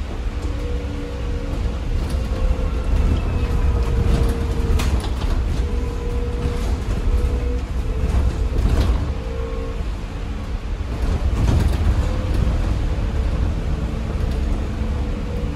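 Cabin sound of a BYD-chassis ADL Enviro 200 EV electric bus on the move: a steady low road rumble with a faint whine from its electric in-wheel drive motors. There are short rattles and knocks from the body and fittings a few times, the clearest about 5, 9 and 11 seconds in.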